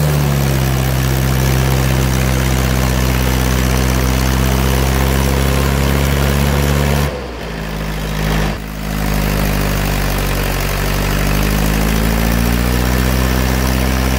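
Mahindra 575 DI tractor's four-cylinder diesel engine running steadily under load while pulling a rotavator through soil. It goes quieter for about a second and a half midway, then carries on at the same steady pitch.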